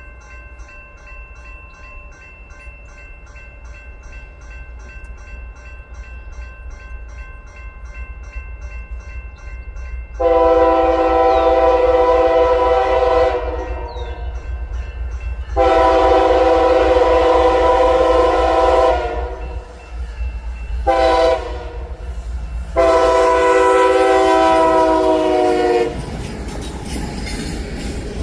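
Freight locomotive air horn sounding the grade-crossing signal as the train approaches: two long blasts, a short one and a final long one, a multi-note chord starting about ten seconds in. Before the horn a bell rings faintly and steadily, and near the end the rumble of the train's wheels grows louder.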